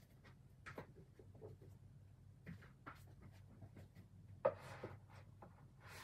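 Books and objects being handled and moved: scattered light knocks and rustles, with one sharper knock about four and a half seconds in followed by a brief scraping rustle.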